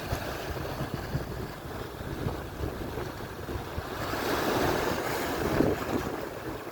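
Atlantic surf washing onto the shore, with wind buffeting the microphone. A wave swells louder from about four seconds in and then eases.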